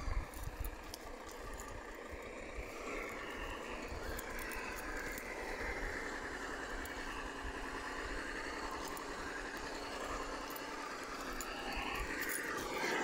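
Tamiya Toyota Hilux High-Lift RC truck crawling slowly over twigs and forest litter: its electric motor and gearbox whine, rising and falling with the throttle, with small crackles from the tyres.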